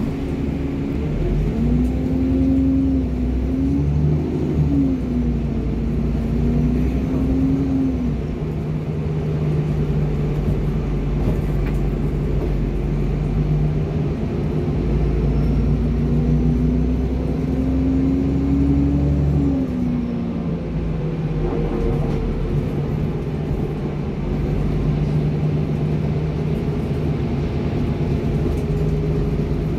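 ADL Enviro 400 double-decker bus's diesel engine and automatic gearbox pulling hard, heard from inside the upper deck: a whine climbs in pitch and drops at the gear changes, twice, over a steady low rumble.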